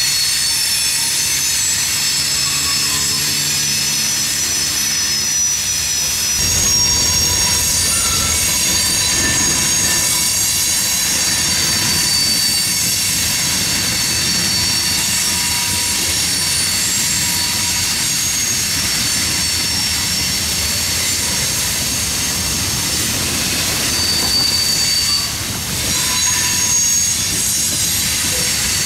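Freight train of tank cars and covered hoppers rolling past on a curve, the wheels squealing in several high, steady tones over the rumble of the cars. The rumble grows heavier about six seconds in.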